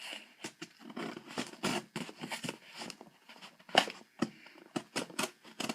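Knife cutting through packing tape on a cardboard box: a string of short, irregular scrapes and clicks, the sharpest two a little under four seconds in.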